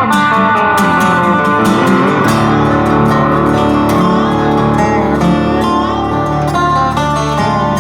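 Background music: a guitar-led track with strummed and plucked acoustic guitar and a steady beat.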